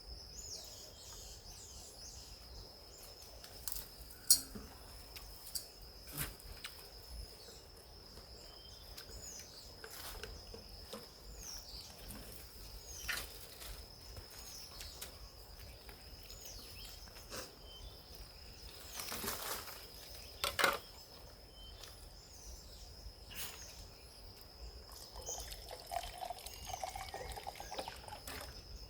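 Tropical forest ambience: a steady high insect drone with small birds giving short repeated chirps over it, plus scattered sharp clicks and a brief rustling burst about two-thirds of the way through.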